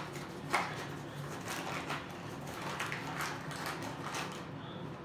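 Handling noises while mixing slime ingredients: a sharp knock, another about half a second in, then a run of short rustling scrapes about twice a second.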